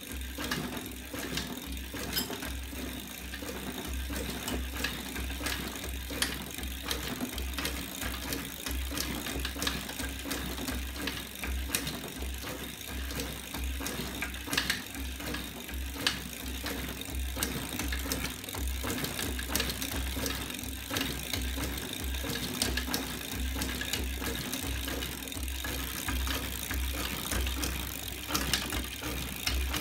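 Homemade magnet-assisted bicycle drive rig running: rapid, irregular clicking and rattling from its swinging lever arms, rollers, chain and sprocket, over a steady hum.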